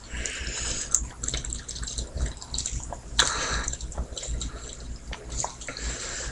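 A person chugging cola from a can: irregular gulps and liquid sloshing, with a sharp click about three seconds in.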